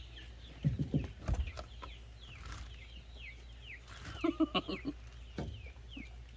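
Birds calling: a series of short, high, falling chirps repeated every half second or so, with a lower call about four seconds in. A few dull knocks come in the first second and a half.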